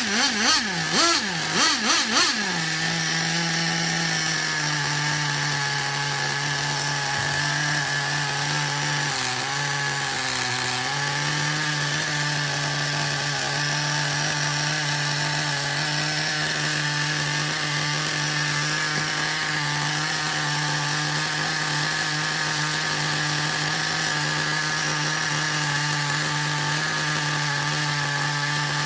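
DTX .18 nitro RC engine revved up and down four times in quick blips, then settling into a steady idle.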